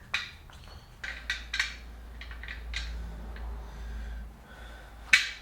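Masking tape being pulled off the roll and pressed onto a motorcycle wheel rim: a string of short rips and scratchy handling sounds, the loudest near the end.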